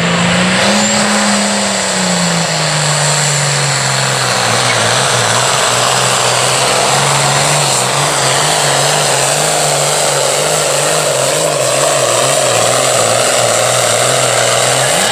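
International Harvester 1066 pulling tractor's diesel engine running flat out under load while pulling the sled. Its pitch lifts a little about a second in, drops about two seconds in, then holds steady.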